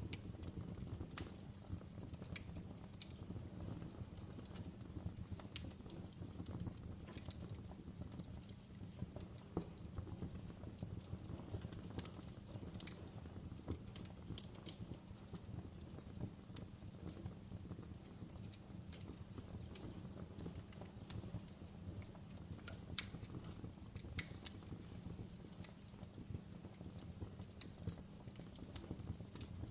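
Wood fire burning in a fireplace: irregular sharp crackles and pops over a steady low rumble of the flames.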